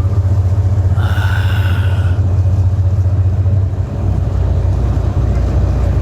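A heavy engine running with a steady low rumble, its pitch dropping about four seconds in, with a brief higher tone about a second in.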